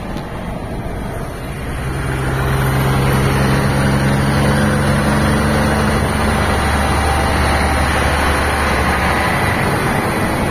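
Scania K 420 coach's rear-mounted diesel engine running at close range, with a steady pitched engine note that grows louder about two seconds in, over road and wind noise.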